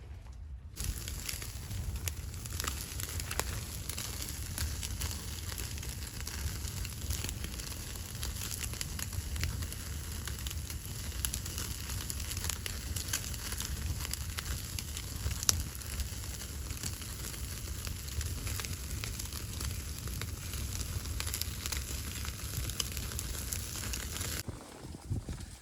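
Wood fire crackling with many small pops over a steady hiss and a low rumble. It starts abruptly less than a second in and cuts off about a second before the end.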